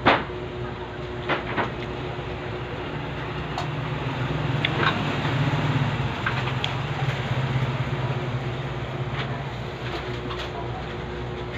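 A motor vehicle engine running close by, swelling through the middle and fading again. Over it come a few sharp mouth smacks and clicks from eating by hand close to the microphone.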